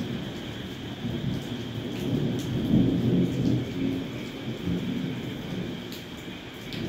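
Heavy rain falling steadily, with a low rumble of thunder that builds to its loudest about three seconds in and then eases off.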